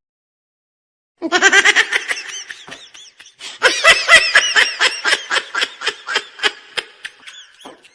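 A person laughing hard in a long run of rapid, high-pitched ha-ha pulses. It starts about a second in and trails off near the end.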